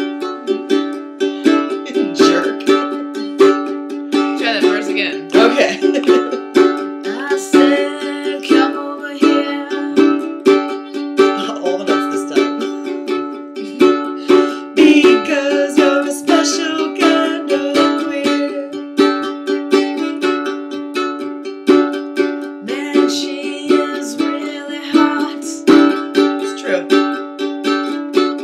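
A ukulele strummed in a steady, even rhythm, playing chords with no voice over it.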